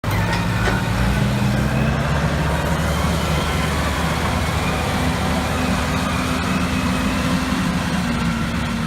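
Large construction crane's heavy engine running steadily, a deep even drone with little change in pitch.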